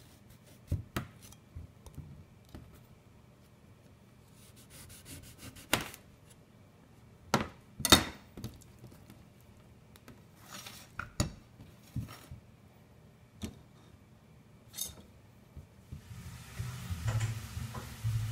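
Chef's knife slicing a lemon on a stainless steel counter: scattered sharp knocks as the blade cuts through and strikes the steel, the loudest about eight seconds in, with brief rustling of the lemon slices being handled. Near the end a steady low hum comes in.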